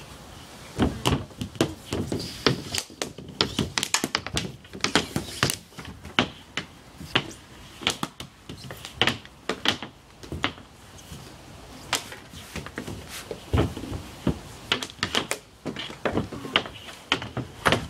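Irregular run of sharp clacks and knocks from ball hockey shooting: sticks striking the ball and the hard plastic synthetic-ice surface, and shots thudding off the goalie's pads and the net.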